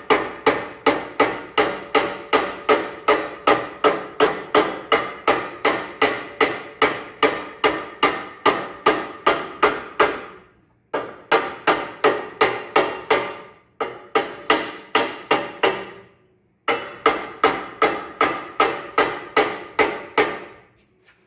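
Hammer tapping steadily, about three strikes a second, to drive a heated steel ring gear down onto a tractor flywheel. Each blow rings with a metallic tone. The runs of taps break off briefly three times in the second half.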